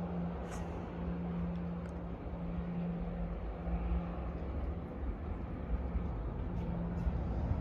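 Steady low hum of a distant diesel train engine over a steady outdoor rumble.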